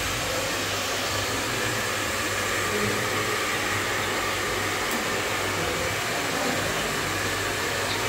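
Steady rush of blown air from an electric blower, with a low motor hum underneath, running evenly throughout.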